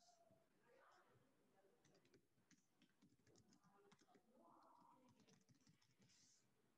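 Faint computer keyboard typing: scattered key clicks at a low level, close to silence.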